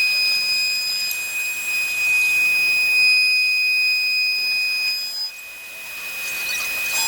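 Glass CNC machining centre at work: a steady high-pitched whine over a hiss, dropping in level about five seconds in.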